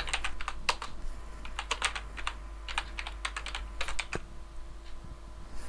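Typing on a computer keyboard: uneven runs of quick key clicks, thinning out to a pause near the end.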